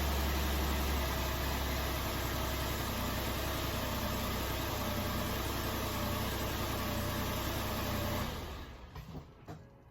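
Ford Explorer engine running at a steady idle on its first start after a timing chain replacement. The sound falls away quickly about eight seconds in, leaving a few faint knocks.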